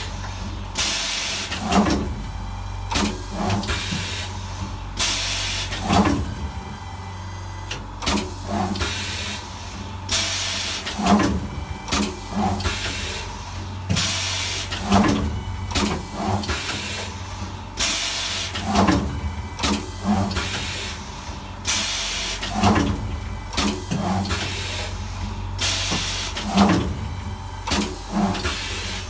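Hot foil stamping press for printing names on napkins, cycling about every four seconds: each stroke brings knocks and clunks as the tray slides in and the head presses, and a burst of air hiss, over a steady low machine hum.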